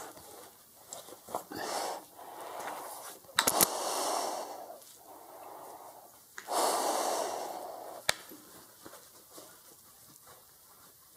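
A person breathing heavily close to the microphone, in several long breaths. There is a sharp knock about three and a half seconds in, the loudest sound, and another click about eight seconds in.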